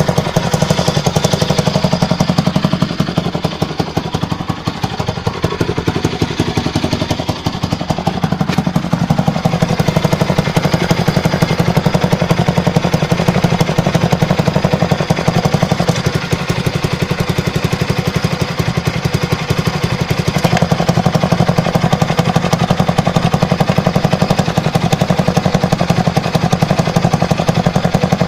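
Bajaj Pulsar NS200's single-cylinder engine idling steadily, with a fast, even beat of firing pulses.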